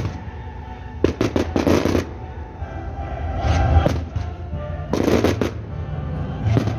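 Fireworks going off in several quick clusters of bangs and crackles, over music playing.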